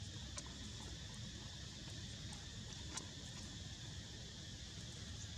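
Steady outdoor background noise, a low rumble under a high hiss, with a couple of faint clicks.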